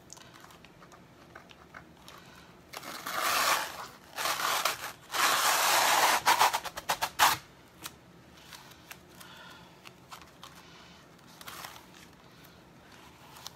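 Sticky Chalk Couture silk-screen transfer being peeled up off the board and handled: a few seconds of loud crinkling, peeling noise in several surges, starting about three seconds in.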